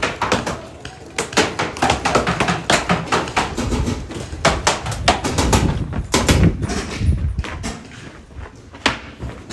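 Paintball markers firing: a long, irregular string of sharp pops, several a second, over low rumble and handling noise from the moving player.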